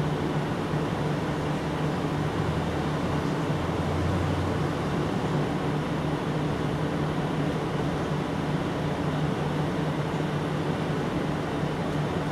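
Steady low mechanical hum over constant background noise, with a deeper hum swelling for a couple of seconds about two seconds in.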